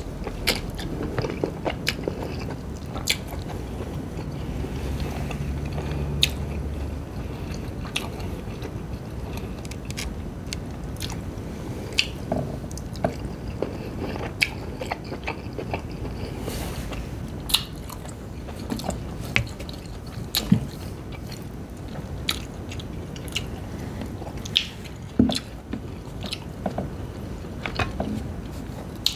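Close-miked chewing of king crab meat: wet mouth sounds with frequent sharp smacks and clicks at an irregular pace.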